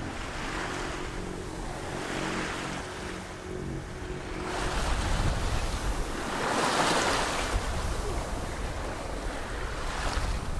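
A sailboat's engine runs steadily under the wash of the sea. About four and a half seconds in, the engine sound gives way to the rush of waves along the hull and wind on the microphone, which swells louder a few times.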